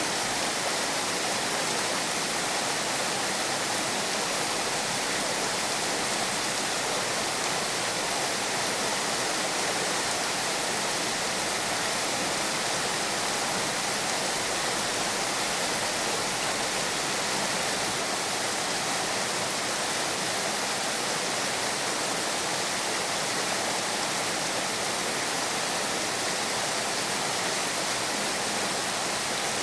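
Heavy rain falling steadily, an even hiss with no thunder or other sudden sounds.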